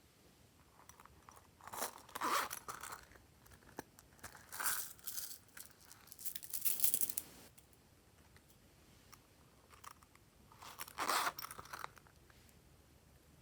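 Glossy slime being kneaded and stretched by hand, making four bursts of crackling and popping separated by quiet pauses.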